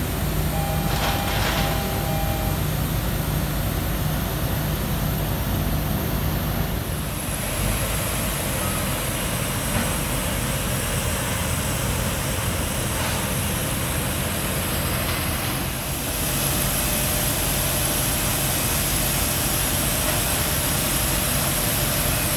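Steady whine and rumble from a parked Airbus A330-300 and its ground equipment on the apron. The high whine changes slightly about seven seconds in and grows louder around sixteen seconds.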